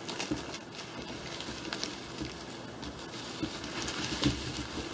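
Bubble wrap rustling and crinkling as hands handle a bubble-wrapped box, with a few sharper crackles.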